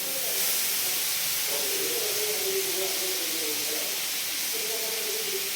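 Fish frying in oil on a dosa griddle, a steady sizzle. Faint voices can be heard underneath.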